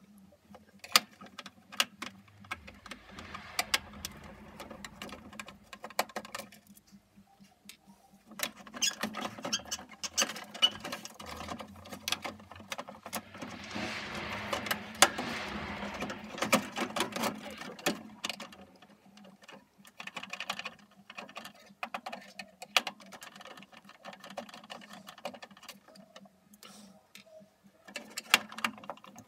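A screwdriver working the screws of an opened Ariston Microgenus combi boiler while its plastic control box is moved about: irregular clicks, rattles and scrapes of metal on plastic, busiest in the middle.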